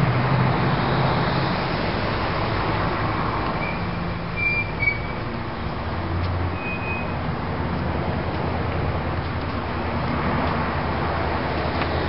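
Steady street traffic noise, with the low hum of passing vehicle engines and a few brief high squeaks about four to five seconds in and again a little later.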